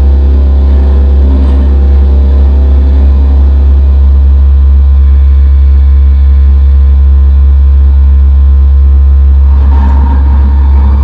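Loud, steady low drone from a WASP synthesizer, heavy in the bass with many sustained overtones layered above it. Near the end a higher ringing sound joins in over the drone.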